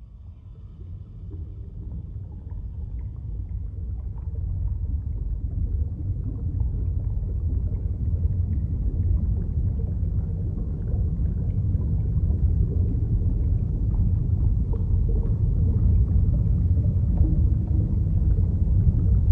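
Deep, rumbling ambient soundtrack drone that swells slowly in loudness, with faint sustained tones above it.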